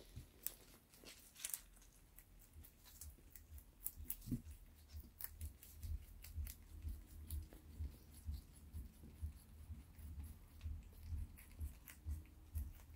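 Lop-eared rabbit chewing a crisp green leaf stem: fast crunchy clicks over soft low jaw thumps that settle into a steady chewing rhythm about halfway through.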